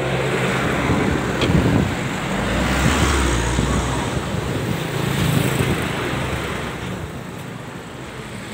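Road traffic going by close at hand: the noise swells and ebbs as several vehicles pass, with a low rumble a couple of seconds in, then fades toward the end.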